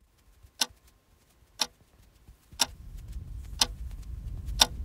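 Wall clock ticking, one sharp tick each second, five in all. A low steady rumble comes in about halfway through.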